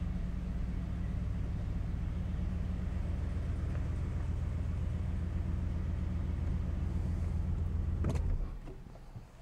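The 1969 Cadillac Fleetwood Brougham's 472 cubic-inch V8 runs at a low, steady idle as the car creeps forward. About eight seconds in there is a click, and the engine shuts off.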